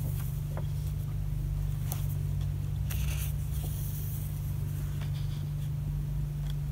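Pages of a paper art booklet being turned by hand: a few soft paper rustles and flaps, over a steady low hum.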